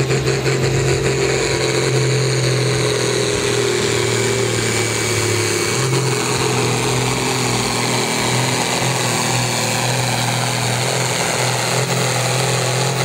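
Turbocharged diesel engine of a New Holland sport-class pulling tractor running flat out under heavy load as it drags the weight sled, a loud, steady drone that holds its pitch throughout.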